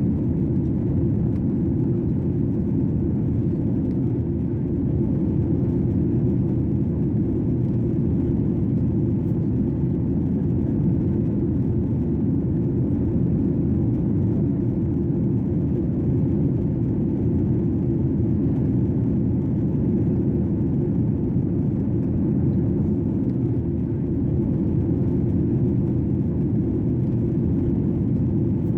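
Airplane cabin noise in flight: a steady, low rush of engines and airflow with no change in pitch or level.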